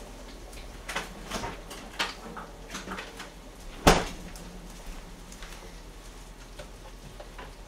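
Kitchen handling clatter: a scatter of light clicks and knocks, with one sharp knock about four seconds in.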